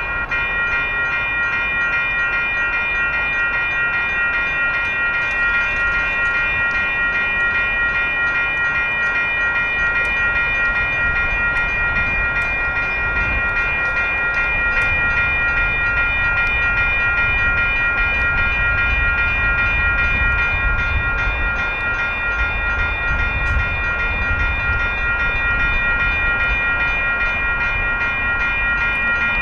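Railroad crossing warning bell starts ringing rapidly and continuously as the crossing signals activate for an approaching light rail train.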